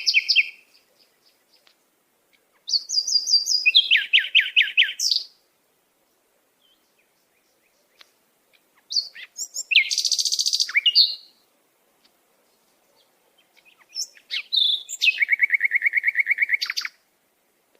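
A sparrow singing: three separate song phrases of rapid, high trilled notes, each lasting two to three seconds, with silent gaps between them.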